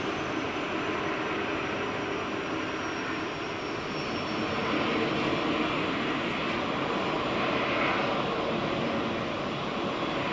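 Jet airliner engines running on the runway: a steady, even roar with a faint high whine that slowly falls in pitch over the first few seconds.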